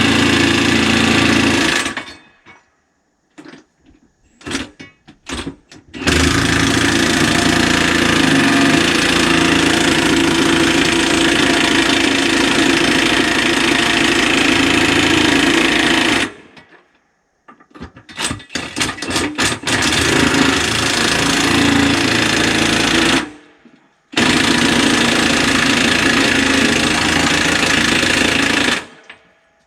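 Milwaukee 1-inch cordless impact wrench hammering on skidder wheel nuts in long runs, one lasting about ten seconds and others a few seconds each. It stops and starts abruptly, with short clicks and clinks in the pauses between runs.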